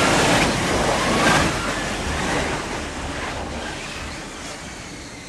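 F-35B jet's engine and lift fan roaring in a vertical landing on a carrier deck. The roar holds for about a second and a half, then dies away steadily as the jet settles onto its wheels and throttles back.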